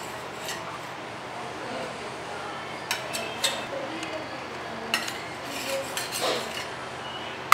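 Metal spoon clinking and scraping against a stainless steel idli plate and a steel serving plate as steamed string hoppers are lifted off, with a few sharp clinks spread through.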